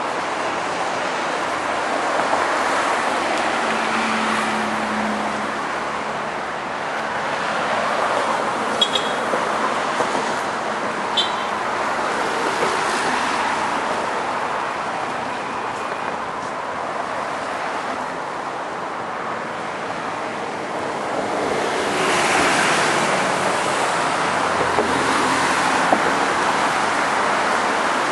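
Road traffic going past: a steady wash of tyre and engine noise that swells and fades several times as vehicles pass.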